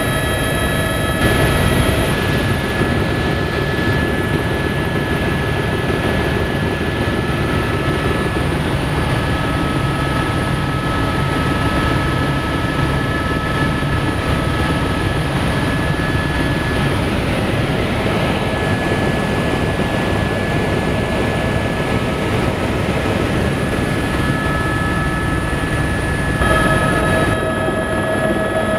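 Helicopter in flight heard from inside the cabin: a loud, steady drone of rotor and engine with several steady high whining tones over it. The tones shift slightly about a second in and again near the end.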